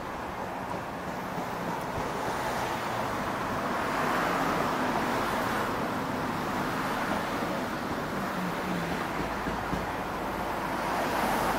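Outdoor street ambience: road traffic passing with a breeze blowing. The noise swells about four seconds in and again near the end, with a low wind rumble on the microphone toward the end.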